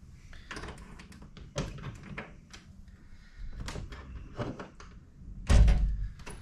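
Hydraulic screen door closer being fitted: a series of short clicks and knocks as its mounting pin is put in, then a louder thump about five and a half seconds in.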